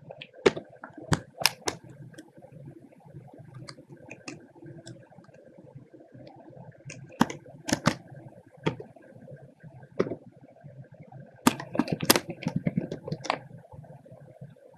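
Keystrokes on a computer keyboard as text is typed: sharp clicks in three short bursts with pauses between them, the densest burst near the end. A faint steady hum runs underneath.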